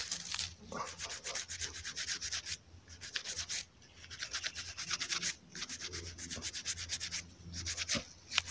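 A stiff-bristled brush scrubbing a small lead figurine of Nossa Senhora Aparecida to clean off soil, in quick back-and-forth strokes. The scrubbing comes in bursts with short pauses, three times.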